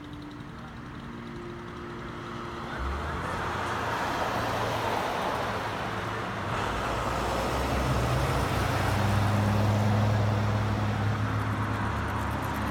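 A large engine running, growing louder about three seconds in and again near the end, with a steady low hum over a rushing noise.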